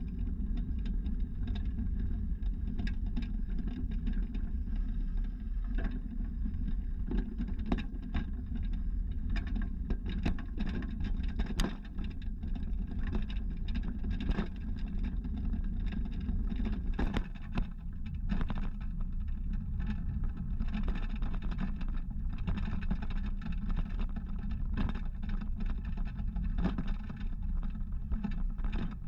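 Cargo tricycle rolling along a tarmac street, heard through a camera fixed to its metal frame: a steady low road rumble from the tyres, with frequent clicks and knocks as the frame rattles over the bumps.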